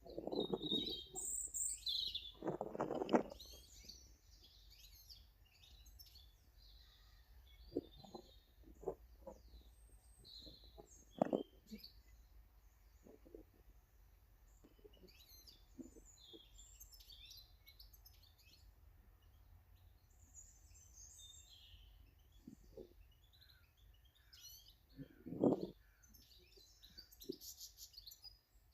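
Small garden birds chirping and twittering throughout, with several louder, short, low rustling sounds close to the microphone.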